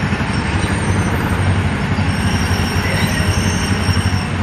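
Small gasoline engine of a Disneyland Autopia ride car running steadily under way, a constant low rumble with rattling.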